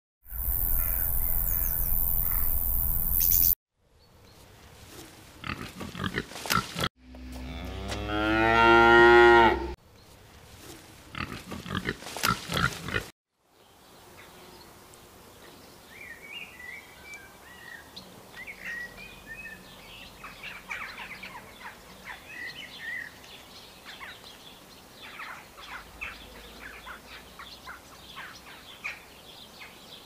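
A series of short farm sound clips cut together: a loud hiss for about three seconds, then a cow mooing, rising in pitch and growing louder about seven seconds in, with clicks and knocks around it, then a long quieter stretch of small clicks and rustling.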